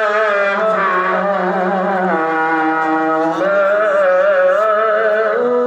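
A male qari reciting the Qur'an in melodic tarannum style, one long melismatic phrase with wavering ornaments. The pitch steps down about two seconds in and rises again a little past three seconds.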